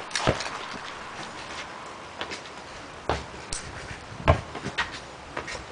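A basketball knocking several times, bouncing on asphalt, with the loudest hit a little past four seconds in as a shot strikes the hoop.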